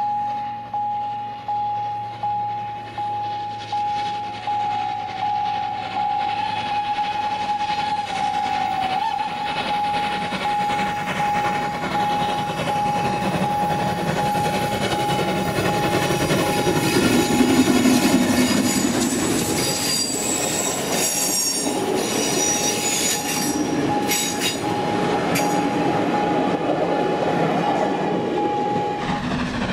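Steam train hauled by an E 3/3 tank locomotive approaching and passing on a curve. Its running noise grows to a peak about halfway through, and the wheels squeal on the curve a few seconds later. A steady high tone runs under it almost throughout, pulsing evenly at first.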